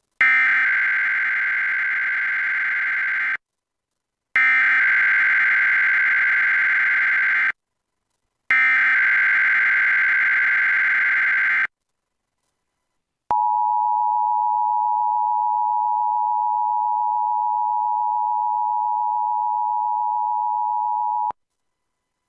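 Emergency Alert System SAME header: three identical bursts of a rapid, buzzing digital data tone, each about three seconds long with about a second's pause between. After a short gap comes the EAS two-tone attention signal, two steady tones sounded together, held for about eight seconds before it cuts off.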